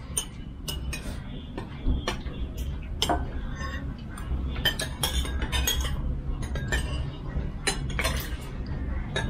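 Cutlery and dishes clinking during a meal: spoons and chopsticks tapping against bowls and plates in many short, scattered clicks, some with a brief ring.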